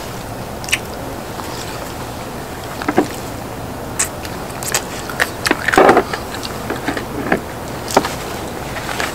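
A person eating: chewing and biting with scattered short clicks, and a louder burst of mouth and utensil noise about six seconds in, over a steady background hiss.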